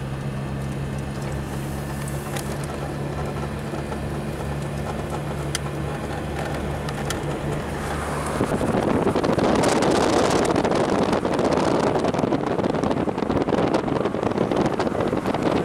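Car engine and road noise droning steadily inside the cabin while driving uphill. About eight seconds in it gives way to a loud rush of wind buffeting the microphone through the open car window at road speed.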